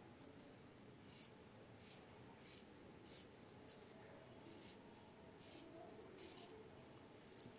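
Large tailoring shears snipping through blouse fabric, about ten faint, evenly paced snips, one every half-second or so.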